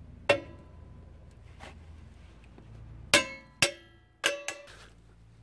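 Sharp metallic clinks and pings of steel brake-shoe return springs and hand tools against the VW T4's rear drum brake shoes as a spring is levered into its hole with pliers and a screwdriver. About five strikes, each ringing briefly: one just after the start and a quick cluster of four from about three seconds in, the first of those the loudest.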